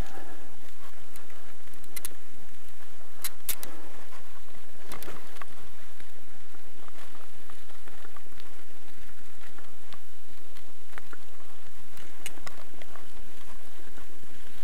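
Bicycle riding along a rough dirt road: a steady low rumble of tyres and wind on the microphone, with sharp rattling clicks from bumps, clustered about three and a half seconds in and again at about two, five and twelve seconds.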